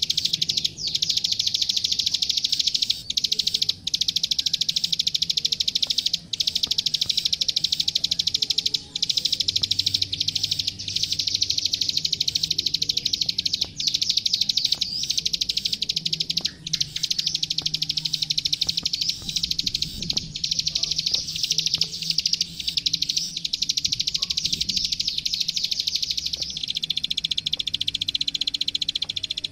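Plain prinia (klik klik, ciblek sawah) singing: a loud, continuous, very rapid clicking trill with only a few brief breaks. Its pitch narrows slightly near the end.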